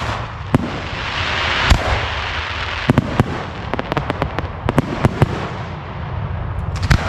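Aerial fireworks display bursting: a rapid series of sharp bangs, with a dense crackling hiss between about one and three seconds in.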